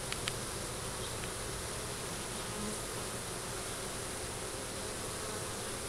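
Honeybee swarm buzzing: the steady, dense hum of many bees flying around a hive that has just swarmed. Pretty loud.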